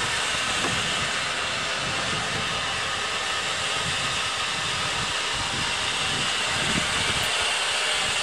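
Water being pumped into a water truck's large tank: a steady rushing hiss that runs on without change.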